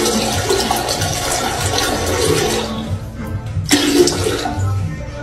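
Toilet flushing, with water running steadily through the bowl.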